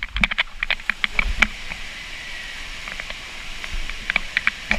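Splashdown from a water slide into the pool: a run of sharp slaps and splashes of water in the first second or so, easing into a steadier wash of water about two seconds in, with more splashes near the end.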